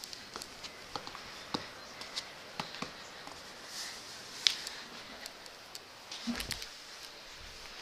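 Handling noise from a small handheld camera being moved about: scattered light clicks and rustles over a faint hiss, with a low bump about six seconds in.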